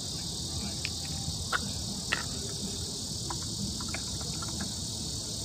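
Steady high-pitched insect chorus, with a few light clicks and taps over it, the clearest about a second and a half and two seconds in.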